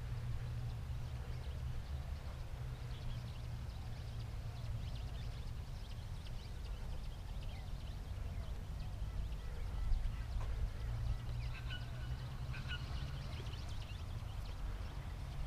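Wind buffeting the microphone, a steady low rumble, with faint short chirps and clicks scattered over it.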